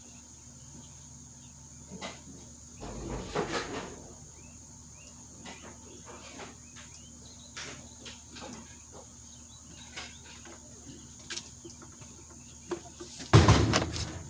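Crickets chirring steadily in the background, with scattered faint knocks and shuffling. Near the end comes a louder burst of knocking and handling noise as a leaf blower is brought up.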